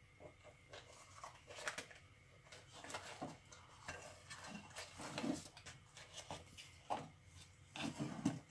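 A Siamese cat rummaging in a wooden tea box: faint, irregular rustling of paper tea-bag sachets and light clicks and knocks against the box, with a louder clatter near the end as a sachet is pulled out.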